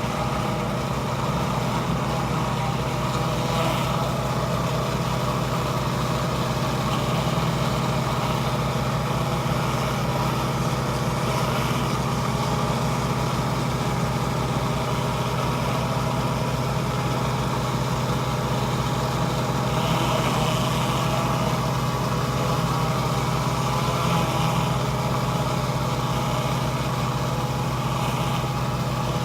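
Gas pressure washer engine running steadily under load, an even drone with a fast low pulse.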